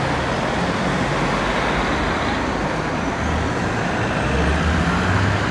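Road traffic: cars driving past around a roundabout, a steady mix of engine hum and tyre noise.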